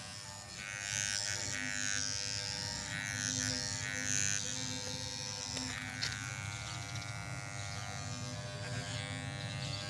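Corded electric hair clipper buzzing steadily as it is run over a man's head, cutting his hair down close to the scalp.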